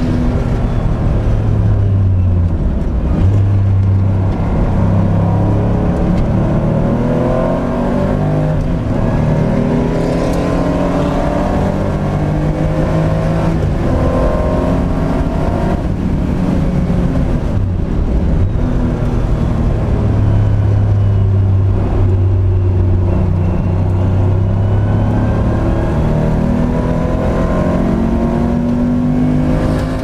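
Porsche 911 SC's air-cooled flat-six racing engine under full load, heard from inside the cabin: the engine note climbs with the revs and drops back at each gear change, several times over.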